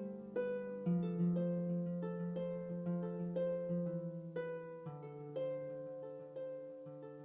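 Celtic-style fantasy instrumental music: a harp plucking a steady run of notes, about two a second, over held low bass notes, slowly fading.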